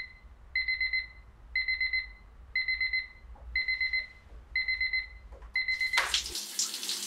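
Digital alarm clock beeping: quick runs of about four high-pitched beeps, repeated about once a second. The beeping stops about six seconds in as a hand switches the clock off, and a rush of noise follows.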